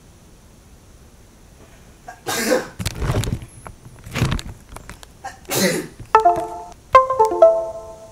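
A person coughing hard several times, in short loud bursts after about two seconds of quiet. From about six seconds in, a few ringing musical notes struck one after another sound over the coughing.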